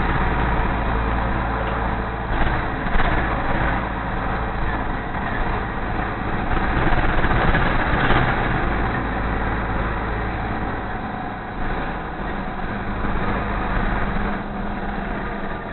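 Nova Bus LFS city bus heard from inside the cabin while riding: steady engine and road noise, with the deep rumble easing about two-thirds of the way through.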